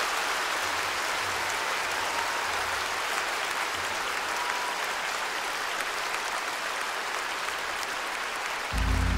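Large concert audience applauding steadily. Near the end, the orchestra's low sustained notes come in.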